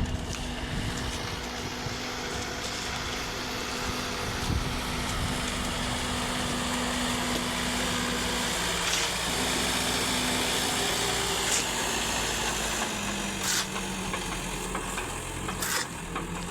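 JCB 3DX backhoe loader's diesel engine running steadily, its pitch stepping down slightly about three-quarters of the way through. A couple of short sharp clicks come near the end.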